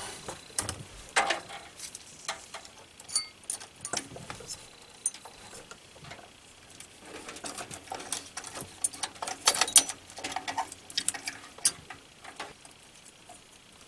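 Scattered light clicks and taps of plastic and metal, denser about two thirds of the way through, as an old CPU cooler is twisted and worked loose from its mount.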